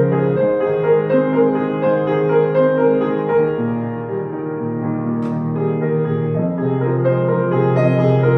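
Instrumental piano music with slow, held chords.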